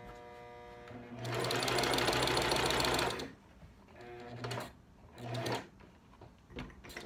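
Small electric sewing machine stitching a seam in a knit sock: a steady whine for about a second, then about two seconds of running at speed, then two short bursts of stitching.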